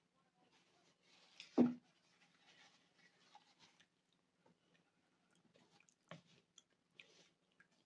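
Quiet eating sounds: a fork tapping and scraping on a plate and soft chewing, with one louder knock about a second and a half in. A faint steady low hum runs underneath.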